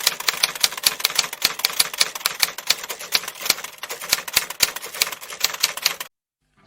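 A rapid, irregular run of sharp clicks, several a second, that stops about six seconds in.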